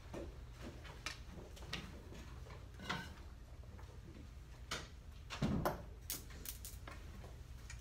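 Quiet classroom room tone: a steady low hum with scattered small knocks and clicks at irregular intervals, the loudest a dull thump about five and a half seconds in.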